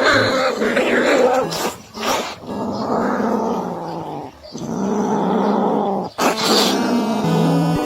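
A dog growling in several long stretches lasting a second or two each, with short breaks between them, over background music.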